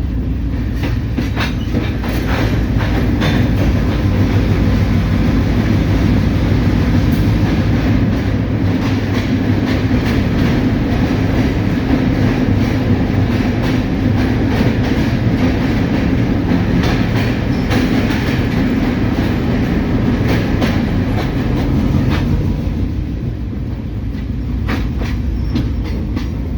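Diesel locomotive running steadily under way, a low engine drone heard from inside the cab, with frequent clicks and rattles of the wheels and train over the track.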